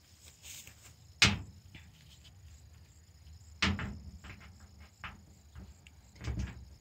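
Sharp knocks of a metal screw and drill bit against corrugated sheet-metal siding as the screw is set in place, the loudest about a second in and another about three and a half seconds in, with fainter taps between. The drill motor is not running.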